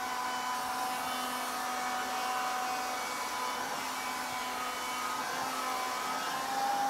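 Handheld cordless vacuum cleaner running steadily as its nozzle is worked over a cat's fur: a continuous motor whine over a rushing air noise, its pitch shifting slightly about halfway through.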